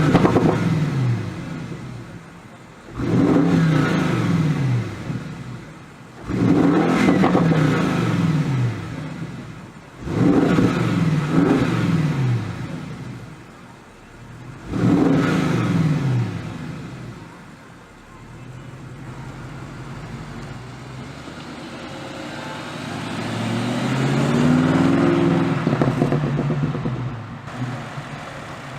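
Bentley Continental GT3-R's twin-turbo V8 through an Akrapovic titanium exhaust, blipped in five sharp revs, each sliding back down in pitch as the revs drop. Near the end the engine note builds more slowly, rises and falls, and fades.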